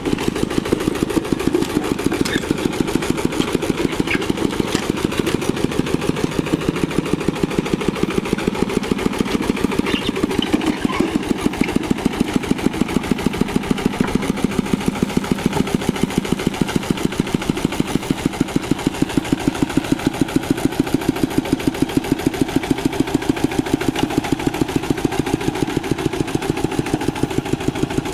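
Single-cylinder Kubota diesel engine of a two-wheel hand tractor running steadily, with an even, rapid chugging beat.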